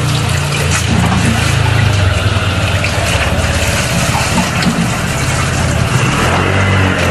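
Water spraying steadily from a handheld shower head onto a dog's coat and splashing into a sink.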